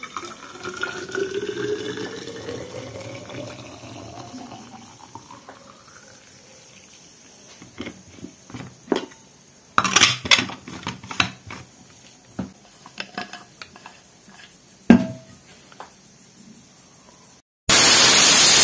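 Water poured into a stainless steel vacuum flask, the pitch of the filling rising steadily as the flask fills. Then a run of clicks and knocks as the flask's cap is screwed on, and near the end a loud steady hiss of steam venting from an aluminium pressure cooker.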